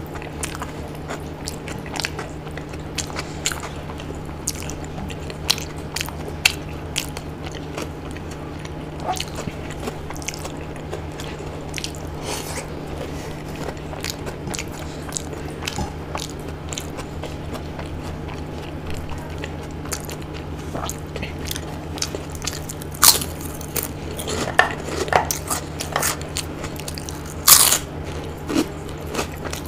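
Close-miked eating: a person chewing with many small mouth clicks, and a few louder, sharp crunching bites near the end, over a steady low hum.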